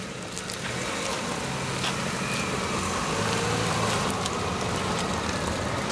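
A car's engine running low as it drives slowly on an unpaved road, with tyre noise from the loose surface; it grows a little louder over the first few seconds.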